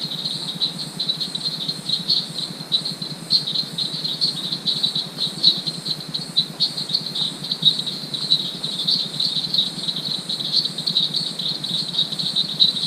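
Night chorus of insects and frogs: a dense, rapidly pulsing high trill that keeps going without a break, over a low pulsing drone.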